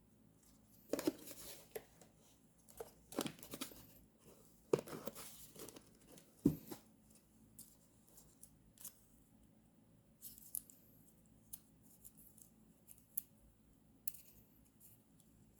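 Paper being handled for journal decorating: several short rustling, tearing or cutting strokes of paper in the first six seconds, a sharp tap about six and a half seconds in, then scattered light ticks and clicks.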